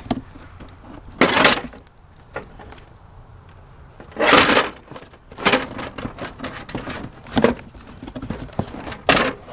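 Handling noise as objects in a curbside trash pile are moved and picked over: a series of short rustles and clunks, about five louder ones with softer clicks between, the loudest about four seconds in.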